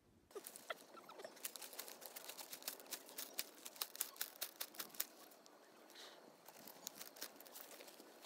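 Faint, rapid, irregular crisp clicks and crackles as gloved hands work a ferro rod fire starter and a paper tissue tinder, thickest for the first five seconds and thinning out after.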